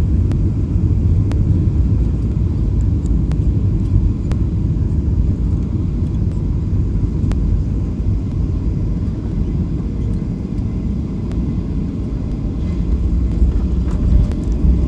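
Steady low rumble of a Boeing 737-800's cabin on final approach, with a few faint ticks.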